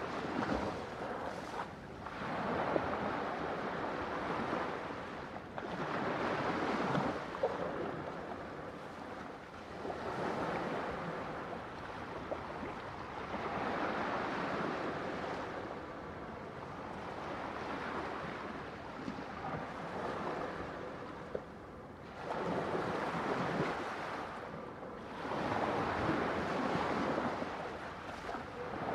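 Ocean waves breaking and washing on the shore, a rushing noise that swells and fades in surges every few seconds.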